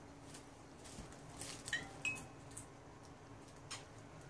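Light clicks, taps and rustles from handling plastic-wrapped bread and a mobile phone, with two short high chirps about two seconds in.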